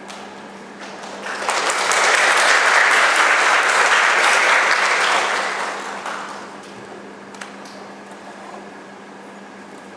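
Audience applauding: the clapping rises about a second in, holds for a few seconds and fades out around six seconds in.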